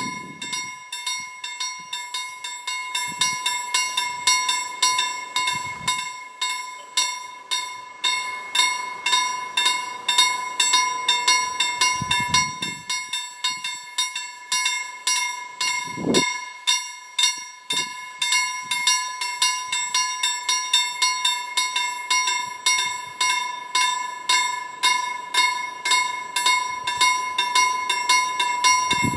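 Railway level crossing warning bell ringing in a rapid, even series of strikes, each leaving a steady ringing tone: the signal that a train is approaching and the crossing is closing.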